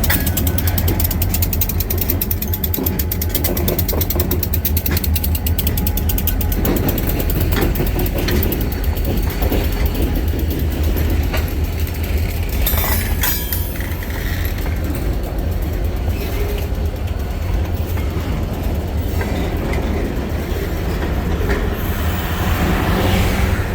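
Great Lakes Central Railroad train cars rolling past, their wheels clattering on the rails over a steady low rumble. A brief high metallic squeal comes about thirteen seconds in.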